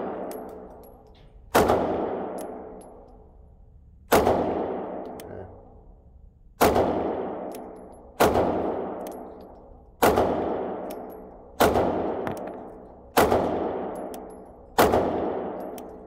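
Sig P320 pistol fired in slow aimed fire: eight shots about one and a half to two and a half seconds apart, each echoing and dying away through an indoor shooting range.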